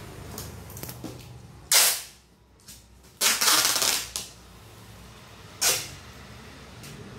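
Packing tape ripped off the roll while sealing a cardboard box: three loud rips, a short one, a longer one, then another short one.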